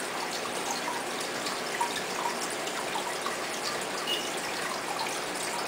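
Steady trickle and splash of aquarium water, an even hiss with small scattered drips.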